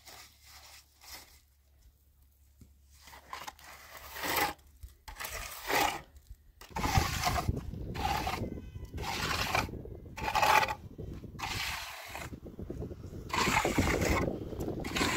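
A trowel scraping cement mortar across a cinder-block wall in repeated short strokes, about one a second, starting a few seconds in. From about halfway a low rumble runs under the strokes.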